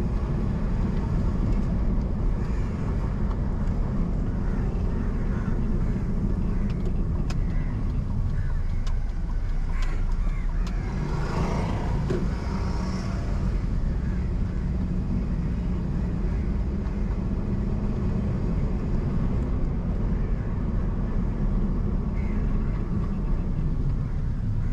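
Car driving along a road: a steady low engine and road-noise rumble, with a brief swell of higher noise about halfway through.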